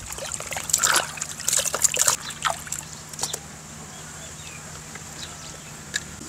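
Water splashing and dripping as wet catfish are handled over a metal tray and a basin of water: a run of small irregular splashes for the first three seconds or so, then quieter, with one more splash near the end.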